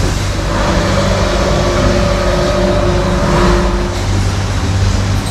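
Dairy milking-shed machinery running with a steady low hum, a held mid-pitched tone sounding over it for a few seconds in the middle.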